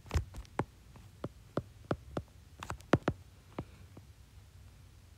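Stylus tip tapping on a tablet's glass screen during handwriting: a quick, irregular run of small clicks that stops about three and a half seconds in.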